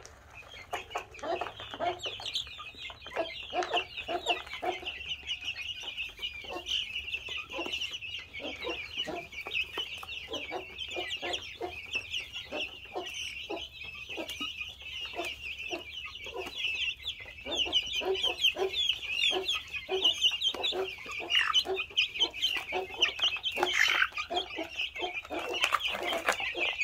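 A flock of young mixed Índio Gigante and Brahma chicks peeping constantly in a dense high-pitched chorus as they crowd the feeder. The chicks are hungry and frantic for feed.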